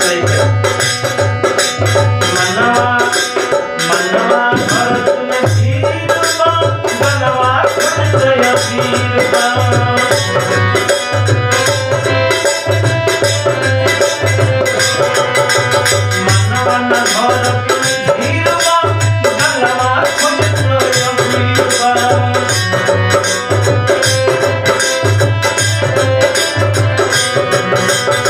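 Instrumental passage of a Bhojpuri Holi folk song: a melody instrument plays over a steady, fast hand-drum rhythm with a shaker.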